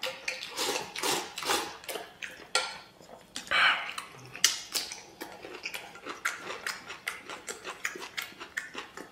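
Chopsticks clicking and scraping against a stainless steel bowl as a person eats from its rim, with slurping and chewing. There is a louder slurp about three and a half seconds in.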